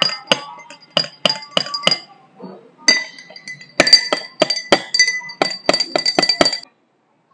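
A long spoon clinking against the inside of a tall drinking glass as beetroot powder is stirred into water: quick repeated clinks, several a second, with the glass ringing after each. The clinks pause about two seconds in, then start again faster and brighter for a few seconds and stop near the end.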